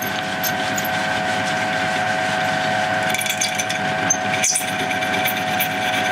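Small bench metal lathe running with a steady whine from its motor and drive, while the cutting tool faces the end of a red plastic sleeve. A light crackle of cutting joins in from about three seconds in.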